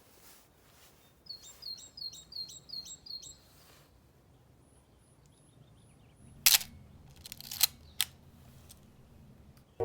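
A string of about six quick, high chirps, then two sharp clicks about a second apart, typical of the shutter of a Canon A-1 film SLR being fired.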